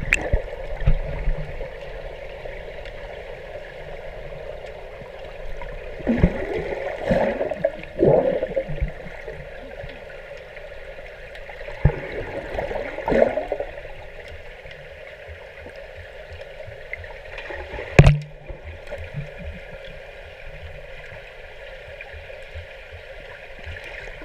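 Steady rush of water from a pool waterfall, with louder splashing about six to eight seconds in and again around thirteen seconds. A single sharp knock near eighteen seconds is the loudest sound.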